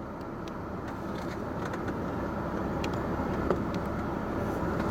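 Steady low rumble of a car, growing slowly louder, with a few faint clicks.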